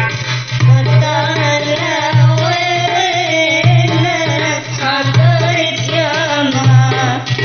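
Tunisian wedding song: a woman's voice singing a wavering melody over hand-drum percussion, with a heavy low beat about every second and a half.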